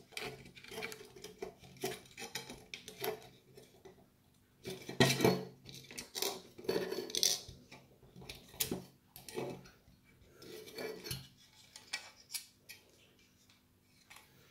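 Small screwdriver levering at the clip of a dome camera's back mounting plate: irregular clicks, taps and short scrapes of the metal tip against the plate, the loudest about five seconds in.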